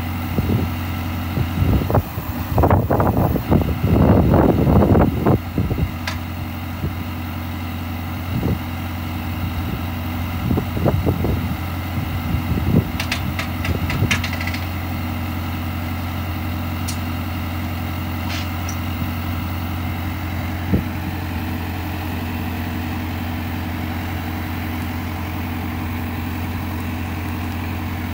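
High-clearance crop sprayer's engine idling steadily, with loud metallic clanking and rattling in the first few seconds and again around ten to fourteen seconds in as its spray-boom wing is pulled out by hand, then a few single clicks.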